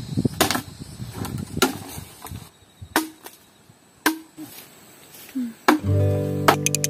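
A machete chopping green bamboo poles: a series of sharp chops about a second apart, some leaving a short hollow ring. Background music comes in near the end.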